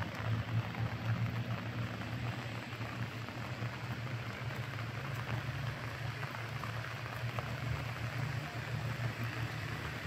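Waterfall and rain runoff rushing steadily, over a low steady hum.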